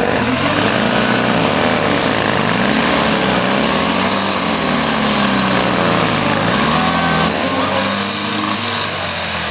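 Motorcycle engine revving, its pitch rising and falling in about four slow swells of a second or two each.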